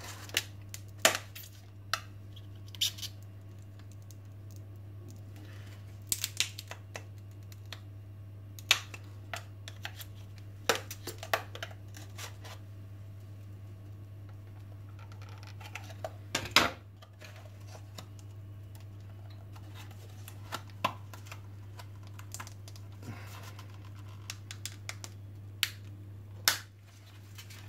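A metal screwdriver prying at a plastic headlamp lens and housing: irregular sharp clicks and scrapes as the lens is worked free of its softened bitumen rubber glue. A steady low hum runs underneath.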